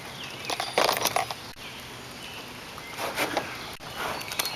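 Light clicks and rattles in two short clusters, about a second in and again about three seconds in, from handling a just-caught bass and a handheld digital fish scale aboard an aluminum jon boat.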